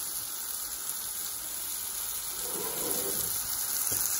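Onions, mint and coriander frying in oil in a pot, a steady sizzle under the heap of chili powder and garam masala just added.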